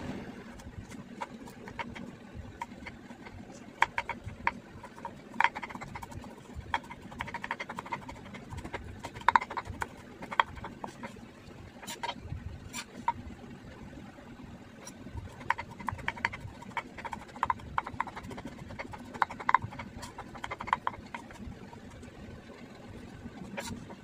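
Knife chopping on a cutting board: runs of sharp knocks, a few a second, with short pauses between the runs.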